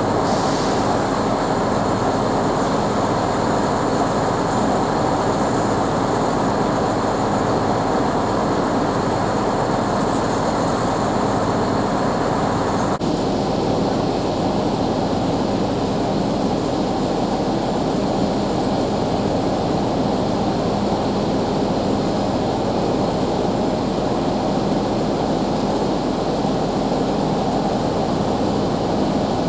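Heavy diesel truck engines running steadily, a continuous low rumble with no change in speed.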